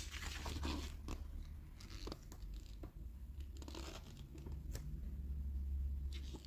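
Glossy paper pages of a toy catalogue being handled and turned, with scattered rustles, crinkles and small clicks over a steady low hum.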